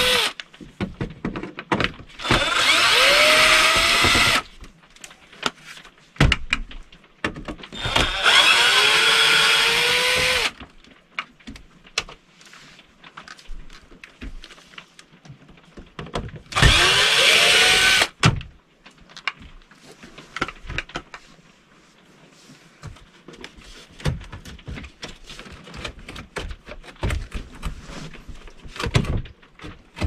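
Cordless drill/driver running on the screws of a dash panel in three short bursts of about two seconds each, its motor whine rising as it spins up. Between the bursts come small clicks and knocks from handling the screws and the panel.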